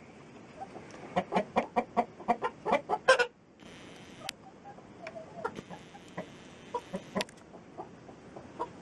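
Domestic hens clucking: a quick run of loud clucks for about the first three seconds, then fewer and quieter clucks.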